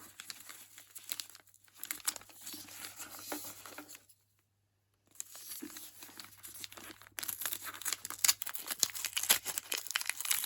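Paper wrapping on a book being torn and crumpled open by hand, in irregular crackles. There is a second's break about four seconds in, and the tearing gets louder and busier from about seven seconds in.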